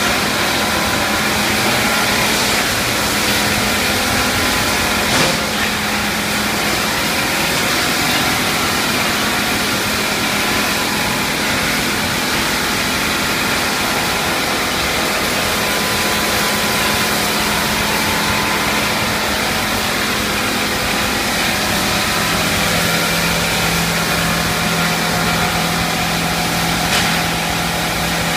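Running PVC pipe extrusion line machinery: a steady drone of motors and fans with a broad hiss and a constant low hum that steps down slightly in pitch about twenty-two seconds in. A brief knock about five seconds in.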